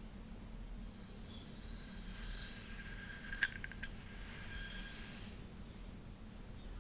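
Hair being handled close to the microphone: a soft rustling hiss from about a second in until about five seconds, with two sharp clicks close together near the middle.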